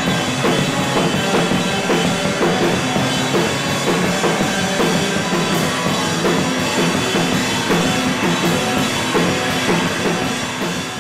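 Rock band playing loud, with a driving drum kit and electric guitar.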